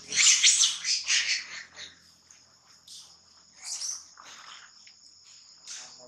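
Baby macaque crying out in a run of shrill screams and squeals in the first two seconds, with a couple of shorter, fainter cries later, as it is attacked by an older monkey. A steady high drone of insects runs underneath.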